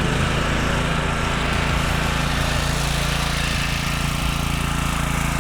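Honda GX390 single-cylinder engine on a generator running steadily with its crankcase drained of oil and the low-oil shutdown bypassed, late in the dry run and shortly before it seizes.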